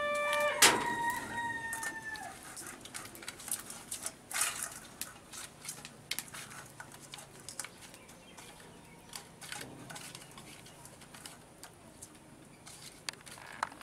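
A rooster crowing in the first two seconds: a long held note, then a higher note that falls away, with a sharp knock partway through. After it come scattered light clicks and taps of hands working turmeric-coated pieces of rohu fish in a steel colander.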